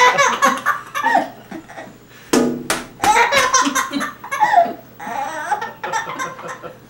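A baby's belly laughs in fits of quick, breathy bursts, with brief pauses about two seconds in and again near five seconds in.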